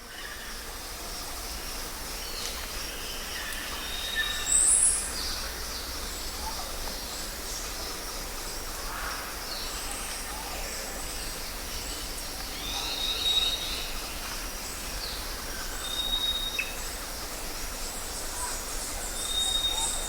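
Rainforest ambience: many bird calls and whistles scattered over a steady background hiss, the loudest a high call about four and a half seconds in.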